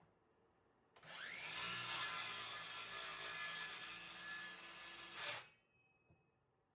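Power saw spinning up with a rising whine about a second in, then cutting through a countertop steadily for about four seconds before stopping.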